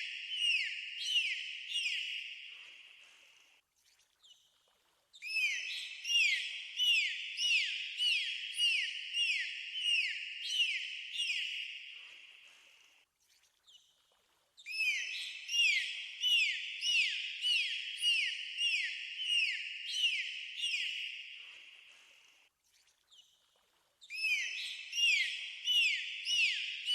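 Dolphin whistles: quick chirping whistles that bend sharply in pitch, about three a second, in bouts of several seconds that fade away, each followed by a pause of a second or two before the next bout.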